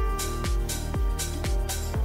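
Background music with a steady kick-drum beat about twice a second, hi-hats falling between the beats, and held synth-like notes above.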